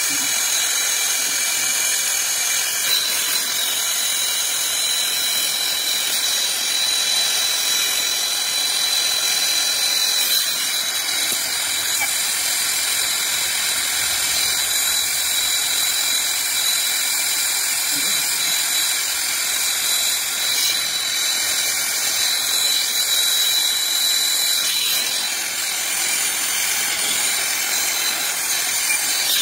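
Brazing torch flame hissing steadily while it heats a copper line joint on a heat pump reversing valve, with a thin steady high tone over the hiss for much of the time.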